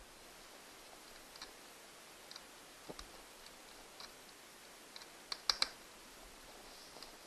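Light, scattered clicks and ticks of small tools and parts being handled on an opened MacBook Air, with a quick cluster of sharper clicks about five and a half seconds in.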